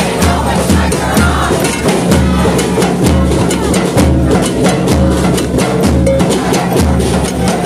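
Drums played live: a steady bass-drum beat under quick snare and percussion hits.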